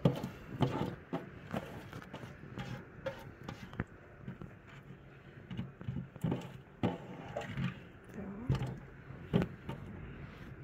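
Scattered light knocks and handling noise from a large glass jar packed with wild garlic being handled in a stainless steel sink.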